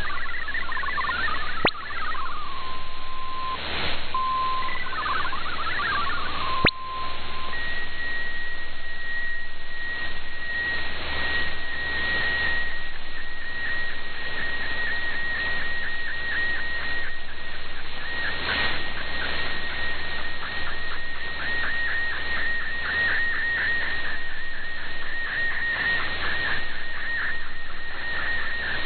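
Shortwave digital-mode data tones over the band's hiss and static. For the first couple of seconds MFSK text tones warble, then a steady tone is broken by short tone clusters. From about seven seconds in, the single high, flickering tone of an MFSK picture transmission carries an image being sent.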